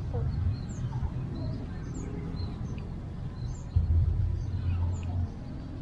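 Small birds chirping in short, repeated high calls over a low rumble that swells for a second or so near the end.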